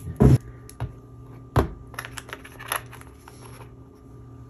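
Small gel polish bottles handled on a hard tabletop: a heavy knock and then a sharp one as bottles are set down and picked up, followed by a quick run of light clicks and taps.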